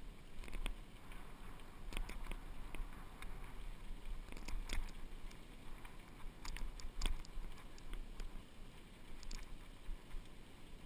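Fuji hardtail mountain bike rolling fast downhill on a dirt trail: tyres crunching over grit and small stones, with scattered sharp clicks and rattles from the bike over bumps. A steady low wind rumble on the microphone runs underneath.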